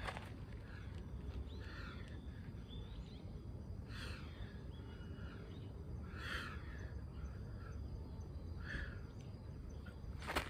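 Outdoor ambience: a bird calling three times, a couple of seconds apart, over a steady low background rumble, with a few fainter bird calls before them.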